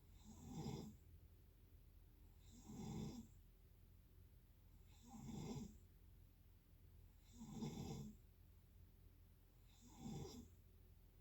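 A person snoring in sleep, five snores in a steady rhythm, one about every two and a half seconds, each lasting about a second.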